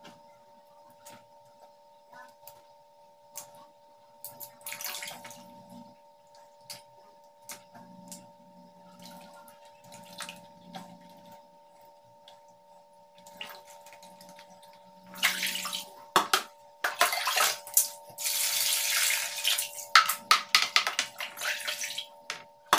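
Hands rinsing soaked salted fish in a plastic bowl of water to wash out the salt: soft sloshing and dripping, then loud splashing water from about fifteen seconds in.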